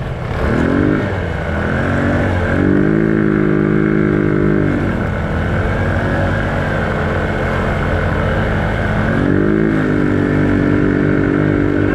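Small vehicle engine revving up and easing off several times. It climbs in pitch about half a second in, again at about two and a half seconds where it holds a higher speed for about two seconds before dropping back, and rises and holds once more near nine seconds.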